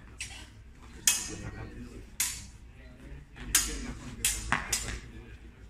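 Steel sidesword blades clashing in a fencing exchange: single ringing metallic clanks about a second apart, then a quick run of four or five clashes.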